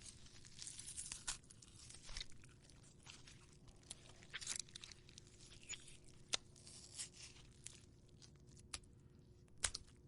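Gore foley: fruit rinds being ripped apart close to the microphone. The sound is irregular tearing and crackling, with a few sharp snaps, the loudest near the end.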